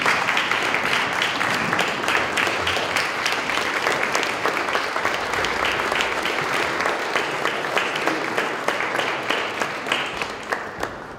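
Audience applauding steadily, a dense crowd of hand claps that thins out and dies down in the last second or so.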